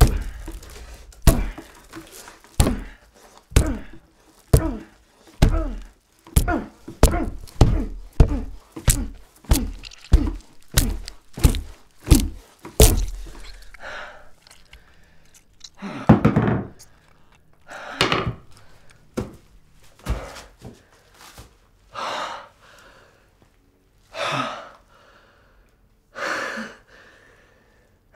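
A hammer striking down again and again in dull, heavy blows, about twenty in quick succession, which stop about thirteen seconds in. After that a man breathes heavily, with slow breaths about every two seconds.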